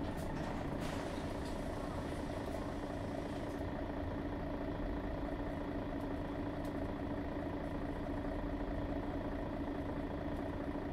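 Mercedes-Benz Citaro G articulated bus's Daimler OM 457 hLA inline-six diesel running steadily at an even, unchanging speed, with a brief hiss about a second in.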